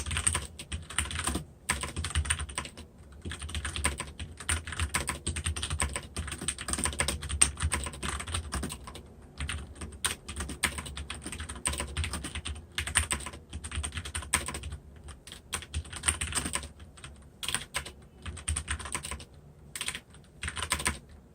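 Typing on a Filco Majestouch 2 Ninja mechanical keyboard with Cherry MX Brown switches: a fast, irregular run of key clacks with a few short pauses.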